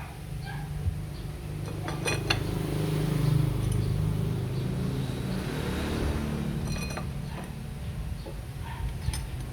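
A few light metallic clinks, as of tools or small metal parts knocking together, over a steady low rumble.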